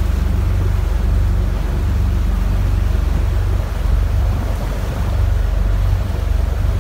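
Small passenger ferry's engine running with a steady low drone while underway. Water rushes along the hull, and wind buffets the microphone.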